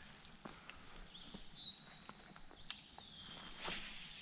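Steady high-pitched trill of insects in the pondside vegetation, with a brief swish about three and a half seconds in as a lure is cast with a baitcasting rod.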